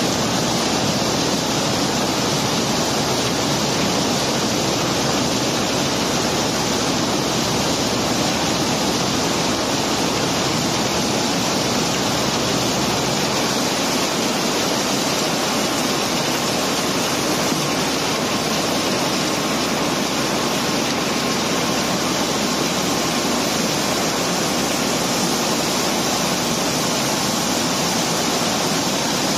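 Cobblestones and gravel pouring steadily out of a barge's hold as it is unloaded: a continuous, even rushing noise with no single knocks standing out.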